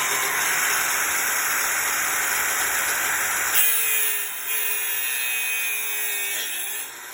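Bench grinder's wheel grinding through a piece of steel screwdriver shaft, a loud rough hiss for about three and a half seconds. Then the grinding stops and the wheel runs on with a slowly falling whine.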